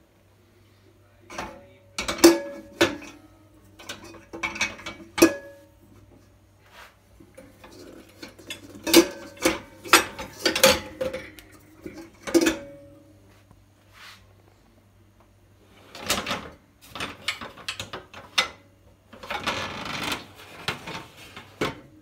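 Enamel and stainless steel pots knocking against each other and the dishwasher's wire rack as they are loaded: a string of clanks, several with a brief ringing tone, then a longer rattle near the end.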